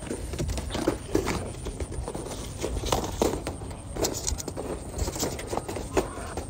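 Footsteps and rustling through field vegetation: irregular scuffs and crunches, some sharper than others.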